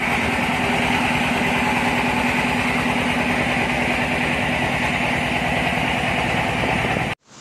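Engine of a wooden fishing boat running steadily, a continuous drone with a fast, even low beat.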